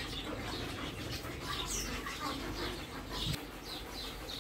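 Small birds chirping: many short, high, falling chirps, several a second, over a low background hum, with one sharp click a little after three seconds in.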